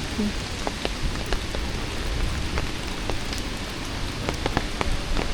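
Heavy rain falling steadily, with many scattered sharp ticks of individual drops striking close by.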